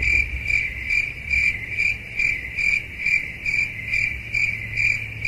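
Cricket chirping: an even, high chirp repeating about three times a second, over a low steady hum.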